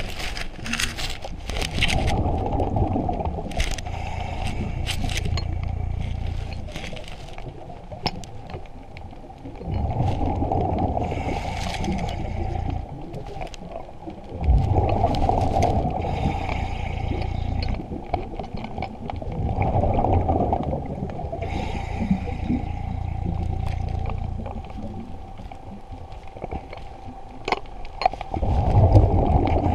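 Underwater scuba diver's breathing heard through the camera housing: regulator hiss and gurgling bursts of exhaled bubbles about every five to eight seconds, with scattered small clicks.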